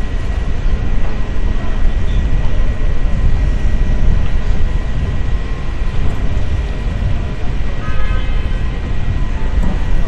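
Steady low rumble of city street noise with traffic, and a faint steady high-pitched whine over it.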